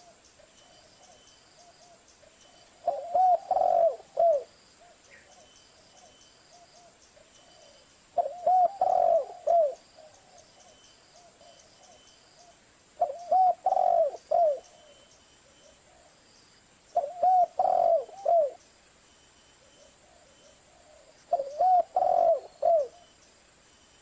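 Spotted dove (tekukur) cooing: five loud phrases of several rounded coo notes, one every four to five seconds, with fainter cooing in between.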